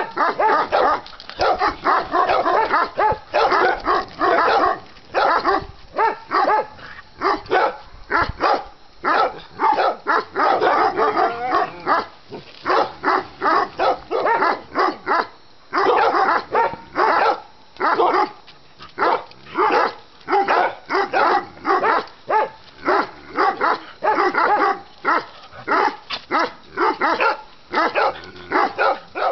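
Small dogs barking and yipping rapidly, almost without pause, as they play-fight.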